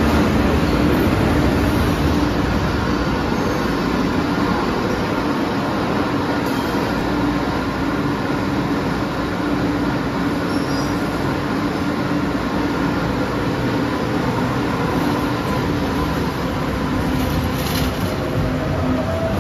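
MBTA Green Line Type 7 light-rail train running along an underground station platform: a steady rumble of wheels and motors with a steady low tone underneath.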